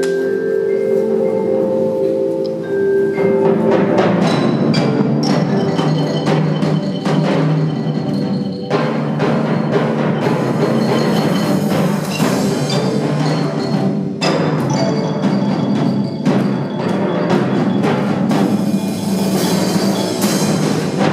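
Percussion ensemble playing, with mallet instruments sounding sustained notes at first, then a dense run of rapid struck notes from about three seconds in.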